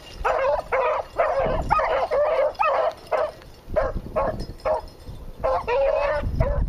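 Hunting dogs giving voice in quick, repeated yelping barks, a call every few tenths of a second, as they work a rabbit's trail. Low rumbles on the microphone come and go.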